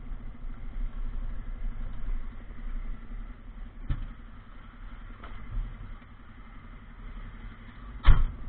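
2019 DAF food-waste truck's engine running steadily at low speed, heard from inside the cab. A short click comes about four seconds in, and a louder thump near the end.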